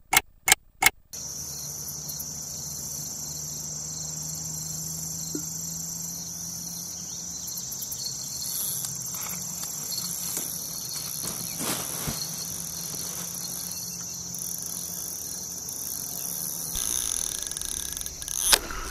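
A steady, high-pitched chorus of crickets and other insects singing on the riverbank. It is preceded in the first second by a quick run of clock-tick sound effects.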